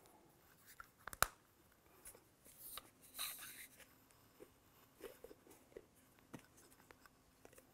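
Quiet handling of a riflescope as a lens cap is slipped onto it: a couple of sharp clicks about a second in, a short rubbing rustle around three seconds, then a few light taps.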